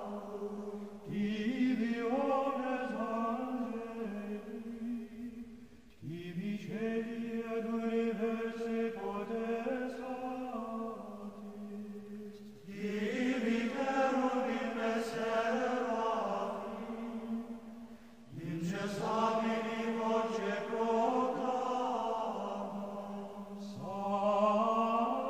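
Chant-like vocal music: voices sing long phrases over a steady low held note. A new phrase begins about every six seconds, sliding up in pitch at its start.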